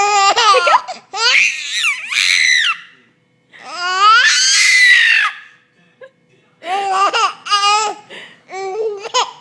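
Baby laughing uproariously in a string of high-pitched bursts of laughter, the longest about four seconds in, with short pauses between them.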